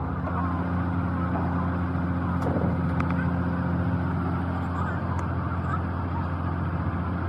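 An engine running steadily at a constant speed with a low, even hum.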